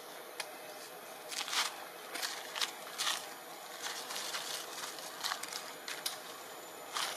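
Irregular crackling and rustling of twigs and leaves, a dozen or so sharp ticks at uneven intervals, over a steady outdoor background.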